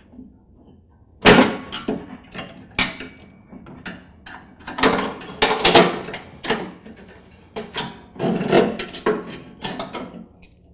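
A run of sharp metallic clicks, knocks and rattles as the PTO cable, its spring and the linkage parts on a Troy-Bilt Pony lawn tractor are handled and pulled free. One loud click comes about a second in and another near three seconds, then quicker clusters follow through the rest.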